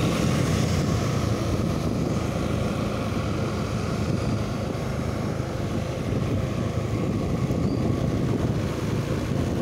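Motorcycle riding at a steady cruise: the engine runs evenly under a continuous rush of wind on the microphone.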